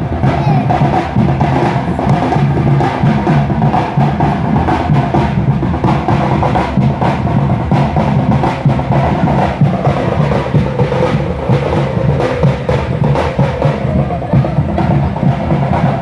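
Drum-led percussion music playing continuously, dense drum strokes under a higher pitched line.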